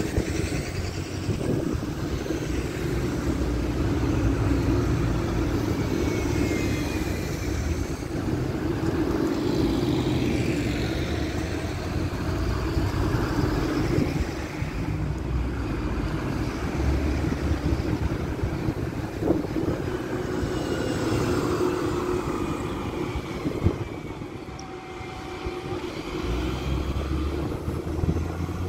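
Steady drone of vehicle engines in street traffic, with wind rumbling on the microphone.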